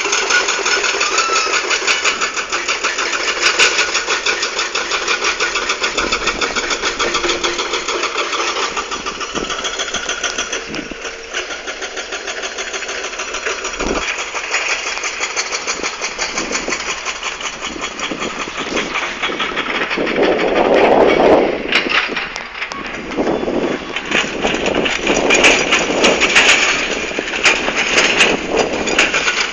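Hydraulic crawler excavator at work: its diesel engine runs steadily under load. From about 20 s on, the bucket scrapes and knocks against rock in a series of clatters.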